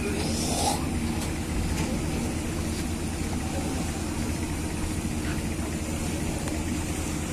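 Steady low drone of a river passenger launch's engine running under way, heard on board.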